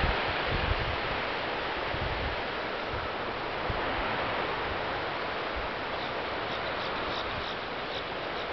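Steady outdoor wash of wind and sea surf, with wind buffeting the microphone in the first second and faint high chirps repeating in the last couple of seconds.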